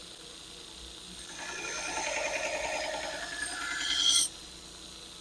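Steel knife blade ground against an abrasive to put its edge on, a rasping pass of about three seconds. It gets louder and brighter toward the end, then stops suddenly.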